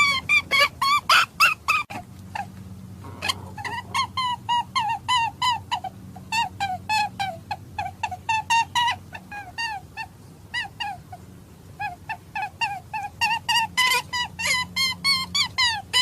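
Rabbit-hunting call: a fast run of short, high squealing calls, several a second, each bending in pitch, thinning out for a few seconds in the middle and crowding together again near the end. A steady low hum runs beneath.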